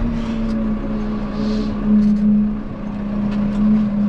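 Tractor engine running steadily while the tractor drives off, with a slight swell in level about two seconds in.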